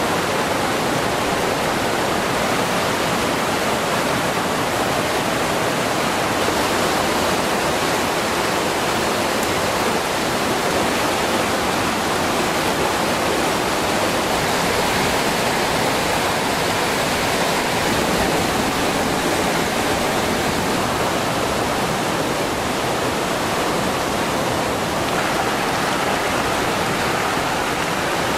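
Swollen, muddy river rushing over rocks: a steady, loud rush of water.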